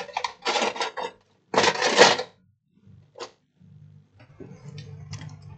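Clatter of a TV mainboard and bench tools being handled: a run of quick rattling clicks over the first two seconds, a single click a little later, then a faint low hum with a few light taps.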